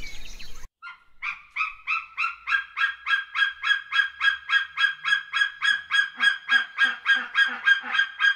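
An animal's rapid, evenly spaced series of short calls, about four a second, beginning about a second in and running on steadily.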